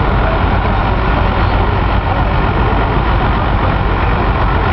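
John Deere 6030 tractor's six-cylinder diesel running hard under heavy load while pulling a weight sled. A loud, steady rumble that holds even throughout.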